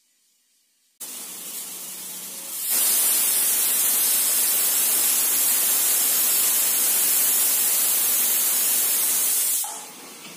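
Aluminium pressure cooker whistling: steam hisses out from under the weight valve, starting softly about a second in, turning much louder a couple of seconds later and holding steady, then dying down near the end. The release means the cooker has come up to pressure, one of the six whistles counted for cooking the millet.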